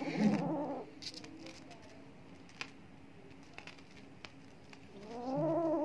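A cat meows twice, once at the start and once near the end, the second call rising and falling in pitch. In between come faint scattered clicks of a kitten chewing a piece of mango.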